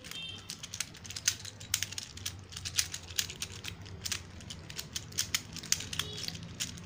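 Plastic infinity cube fidget toy being flipped over and over in the hands: many quick, irregular plastic clicks and clacks as its hinged blocks fold open and snap together.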